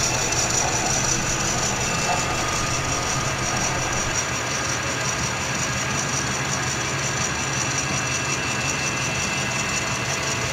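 Metal lathe running steadily, turning a weld-built pin down to size, with a low hum and a high steady whine.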